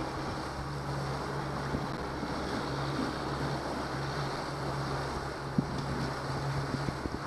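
2019 Yamaha 70 hp outboard motor running steadily under way, its low hum under heavy wind on the microphone and the rush of water from the hull and wake. A single brief knock about five and a half seconds in.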